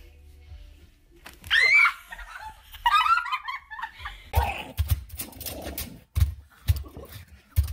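A high-pitched squeal, then a short burst of giggling laughter; after that, a series of dull thumps and knocks.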